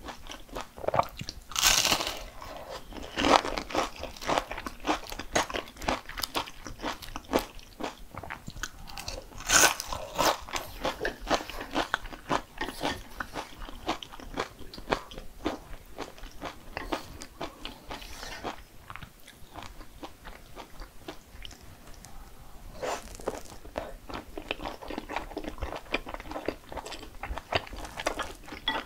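Crunchy bites and chewing of food, with louder crunches a few seconds apart and many small crackles between them.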